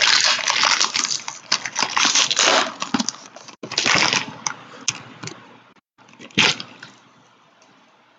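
Trading-card pack wrappers crinkling and rustling as hands handle the packs. The sound is dense and crackly for the first four seconds or so, with one short sharp crinkle about six and a half seconds in, then dies down.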